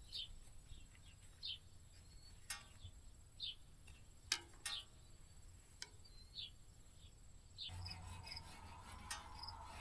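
Faint crickets chirping in short high chirps, with a few light clicks. Near the end a steady low hum starts and the chirping quickens to a few chirps a second.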